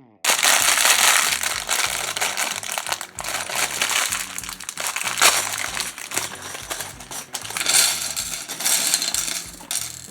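Small plastic LEGO pieces clattering and clinking together, mixed with the crinkle of a plastic parts bag; the noise starts abruptly and stops abruptly near the end.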